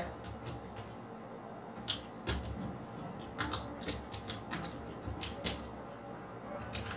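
Computer keyboard keys being typed, a quick irregular run of light clicks with short pauses between words.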